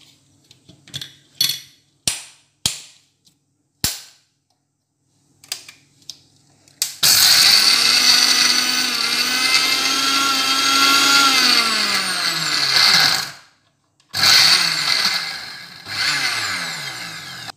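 Electric mixer grinder crushing whole Oreo biscuits in its steel jar, run twice: a loud whine of about six seconds that climbs to speed and winds down, then after a short pause a second run of a few seconds that slows. Before the first run, a few short clicks and knocks as the jar and lid are fitted.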